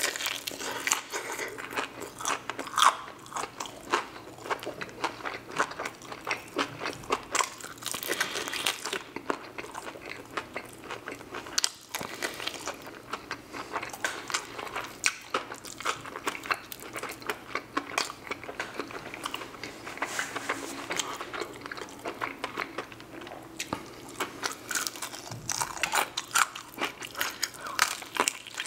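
Close-up mouth sounds of biting into and chewing crispy Jollibee fried chicken: the breaded skin crunches in a dense, irregular run of crackles.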